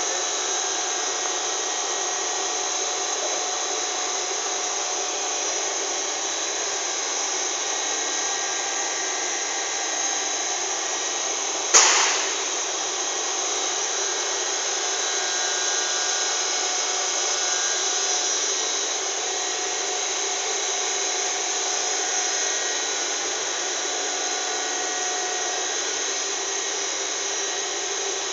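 Steady machinery noise of a working factory floor, with a few faint steady tones in it. One sharp bang stands out about twelve seconds in.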